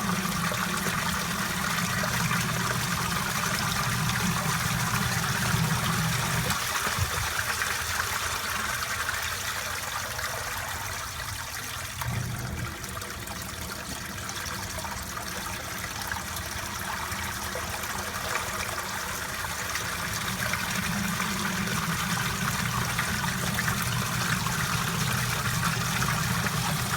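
Steady rush of water with a low hum from a newly installed sump pump running continuously, pumping out a pit that had filled almost to overflowing. The low hum weakens for a while in the middle and comes back.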